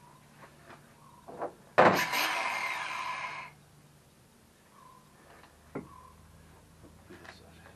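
DeWalt cordless angle grinder running in one brief burst of under two seconds against a steel post, starting suddenly and falling away as it stops. A few light knocks of handling come before and after it.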